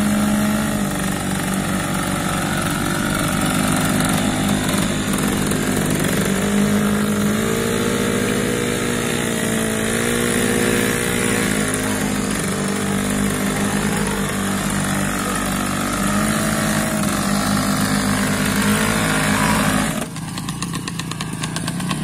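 Motorcycle engine running with its revs rising and falling. It drops abruptly to a quieter, rougher running about 20 seconds in.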